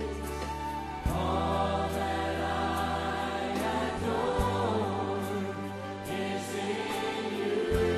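A choir singing a slow worship song over instrumental backing. Held bass notes change about a second in, about halfway through and near the end.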